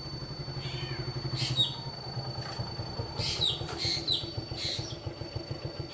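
A bird, taken for a mockingbird mimicking a cat, gives about six short calls that each drop in pitch, over a steady low pulsing hum.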